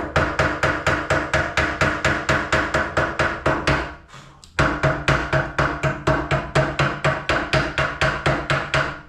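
Hammer chipping flux slag off a fresh cast-iron arc weld on a Ford Model T radiator neck: rapid, even blows, about six a second, each with a metallic ring. The blows stop briefly about four seconds in, then start again.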